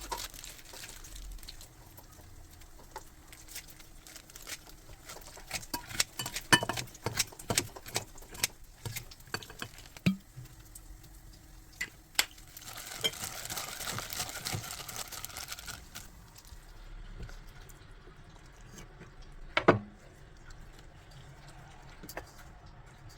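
Kitchen cooking sounds: a run of quick utensil clicks and knocks against dishes, then a steady hiss for a few seconds, and one sharper knock near the end.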